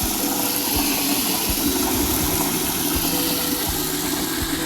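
A water pump motor runs with a steady hum and faint regular knocking, under an even hiss of running water.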